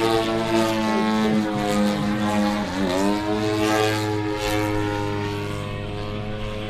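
A giant-scale RC aerobatic plane's Desert Aircraft DA-120 twin-cylinder two-stroke petrol engine and propeller running in flight. About three seconds in, the engine note dips sharply as the throttle comes back, then climbs again and holds steady.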